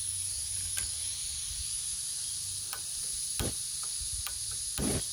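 Butane gas hissing steadily from the burner of a cheap canister backpacking stove that won't stay lit, starting suddenly as the valve is opened. Several sharp clicks are heard through the hiss.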